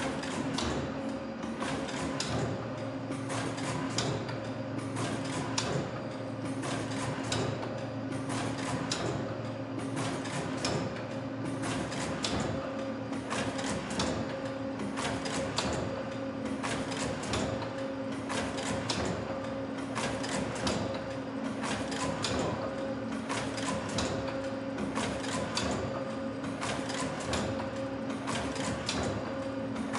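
TEL 183 automatic weaving loom for leather strips running: a steady hum with a continual train of short, sharp mechanical clacks as it cycles.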